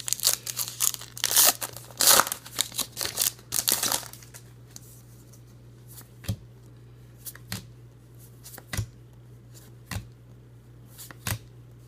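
Plastic trading-card pack wrapper crinkling and tearing for about four seconds, then a handful of separate soft taps as cards are slid and flipped one at a time.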